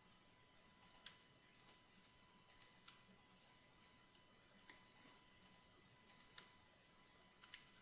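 Faint clicks of a computer mouse and keyboard, coming in short pairs and small groups every second or so.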